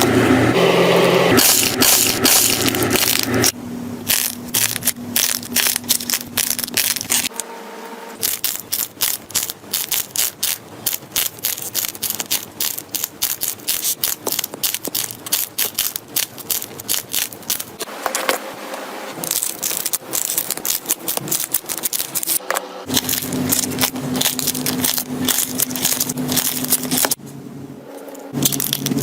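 Slime being squeezed and pressed by hand, giving rapid crackling and popping clicks, in several short clips one after another.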